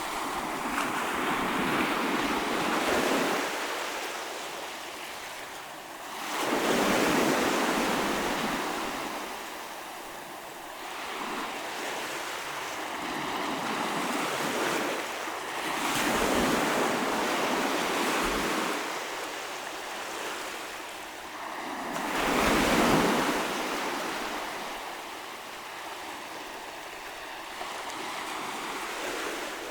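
Ocean waves breaking and washing up on the shore, each one a rush that swells and fades, coming in surges every several seconds.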